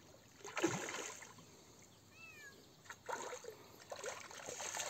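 Water splashing in irregular bursts as a hooked carp thrashes at the surface and a landing net is worked through the water beside a wooden rowboat. The loudest splash comes about half a second in, with more around three and four seconds in.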